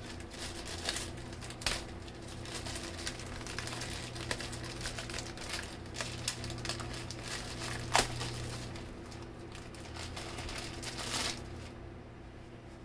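Packaging being handled and rustled, with irregular crinkling and a few sharp clicks and taps, dying down near the end.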